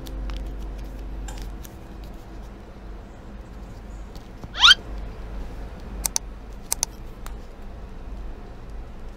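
Origami paper being handled and creased by hand: light paper clicks and crackles, with one loud rising squeak about halfway through and a few sharp crackles a little after it.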